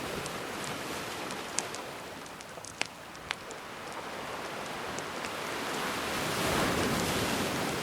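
Gentle sea waves washing in, swelling to a peak near the end, with a campfire crackling over them in a few sharp pops.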